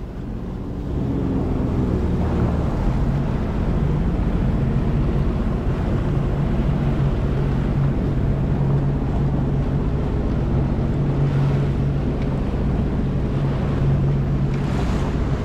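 Jet ski engine running steadily at a constant pitch, with wind noise on the microphone and water noise.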